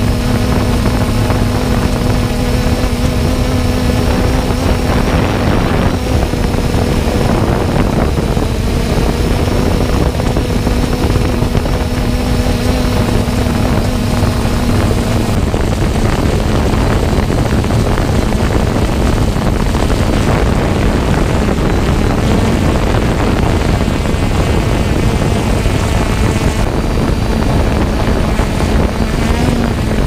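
Motorcycle engine running at a steady cruise, with wind noise over the microphone. The engine tone drops a little in pitch about halfway through and stays steady after that.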